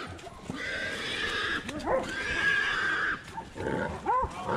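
Wild hog squealing in long, harsh screams broken by short pauses. Shorter rising-and-falling calls come about two seconds in and again near the end.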